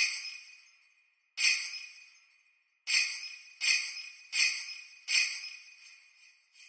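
Sleigh bells shaken as a count-in: two slow shakes, then four evenly on the beat, each ringing briefly, then lighter, quicker jingles near the end.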